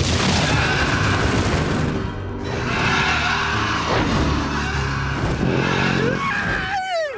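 Cartoon sound effect of a giant worm erupting out of the ground: a long, loud rumble and rush of earth over dramatic music, with a short sound falling quickly in pitch near the end.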